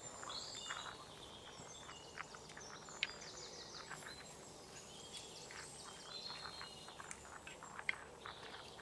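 Small birds chirping and twittering steadily in the background, with a few light knocks of a wooden spatula against the clay pot as the masala is stirred, the clearest about three seconds in and near the end.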